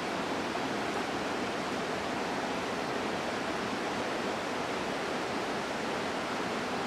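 Creek water rushing steadily, an even unbroken wash of noise.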